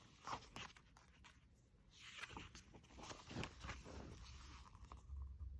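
Faint paper rustling and soft clicks as the pages of a photobook album are turned and handled, a few short rustles scattered through.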